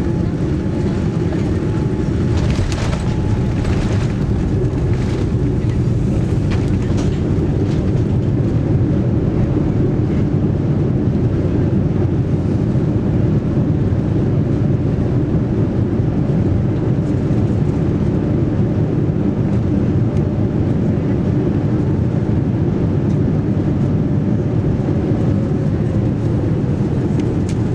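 Steady low rumble of a Boeing 787-9 airliner heard from inside the cabin, with a few light clicks in the first seconds and a faint tone slowly falling in pitch near the end.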